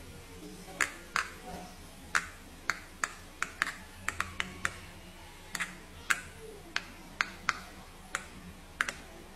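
Rainbow silicone Pop It fidget toy having its bubbles pressed in one by one with the fingers: about twenty sharp pops at an uneven pace, one to three a second.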